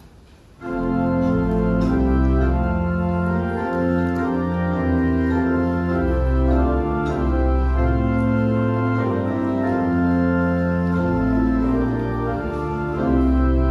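Church organ playing a hymn tune in slow, held chords over a deep pedal bass. It comes in suddenly about half a second in.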